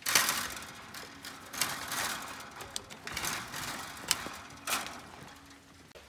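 A nylon rope being untied from a wooden post and chain-link fence: a string of short scrapes and rustles as it is pulled, with the wire mesh rattling and a sharp click about four seconds in.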